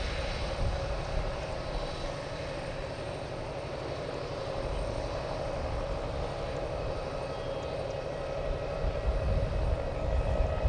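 Boeing 767 jet engines running at taxi power as the airliner rolls along the taxiway, heard at a distance as a steady hum with a faint high whine over a low rumble.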